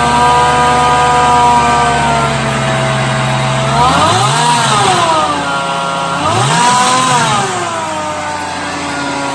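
Mustang engine idling with its Eaton M90 supercharger whining steadily, then blipped twice in quick succession; the whine rises and falls in pitch with each blip.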